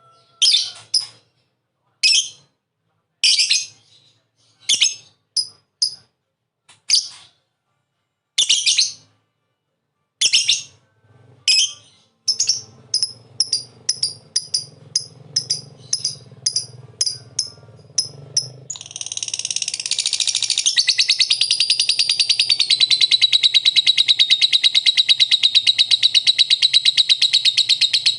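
Lovebird calling. It gives separate sharp, high chirps about once a second, then a quicker run of chirps. About two-thirds of the way in it breaks into one long, continuous rapid trill, the 'ngekek' song prized in lovebirds.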